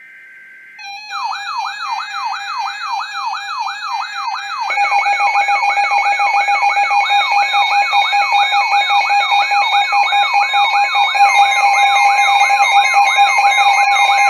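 Electronic emergency alert tones: a siren-like sweep repeating about twice a second over a steady tone, with more steady tones joining and growing louder about five seconds in.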